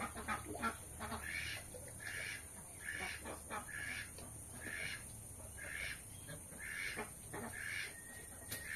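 A domestic fowl calling over and over, short calls at about one a second.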